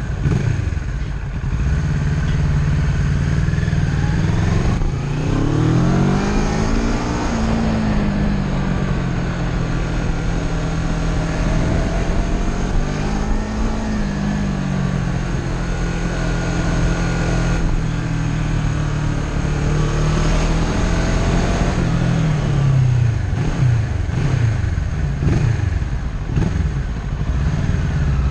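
Kawasaki Ninja 650's parallel-twin engine heard from on the bike at low speed, its revs rising and falling as it accelerates and eases off several times. Near the end come several short, quick rises in pitch.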